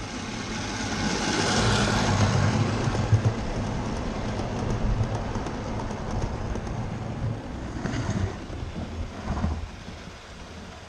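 Model train running on the raised garden railway, its wheels rumbling on the metal rails, getting louder as it nears the track-level camera and easing off as it passes.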